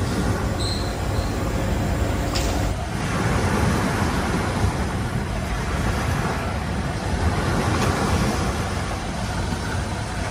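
Steady rushing wind and sea noise on an open beach at night, heaviest in the low rumble.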